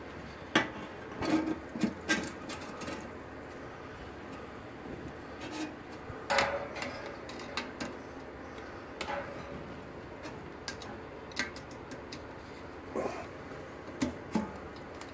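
Scattered light clicks, knocks and short scrapes of a plastic fan blade being fitted onto a wall-mounted fan's motor shaft and secured at its hub with a screwdriver. The sharpest knocks come about half a second in and near the end.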